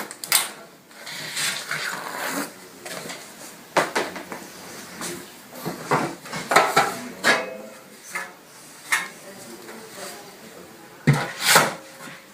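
Stainless-steel cover of a wall-mounted glue-board insect trap handled and lifted off: metal clattering, scraping and knocking, with the sharpest clanks about six to seven seconds in and again near the end.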